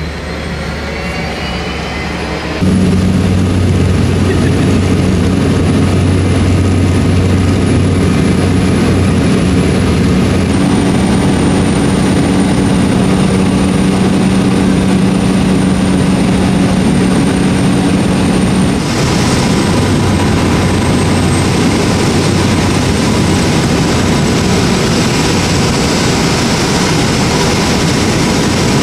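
Small propeller plane's engines droning steadily, heard inside the cabin: a low hum with a thin high whine above it. The drone jumps in level and tone a few times, where clips are cut together.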